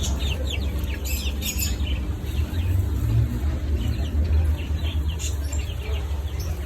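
Many small birds chirping in quick, overlapping bursts, over a steady low rumble.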